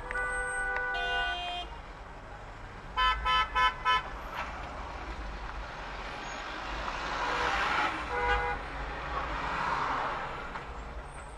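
Car horn honking: one honk lasting about a second and a half at the start, four short toots in quick succession about three seconds in, and one more brief honk about eight seconds in, over road noise that swells and fades.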